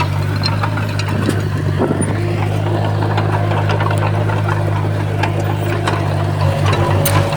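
Komatsu D51PX bulldozer's diesel engine running steadily under load, with scattered sharp clicks and knocks over it. Near the end the engine note pulses briefly.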